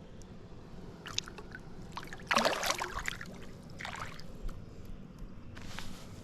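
Water splashing and sloshing against a small boat in several short bursts, the loudest about two and a half seconds in.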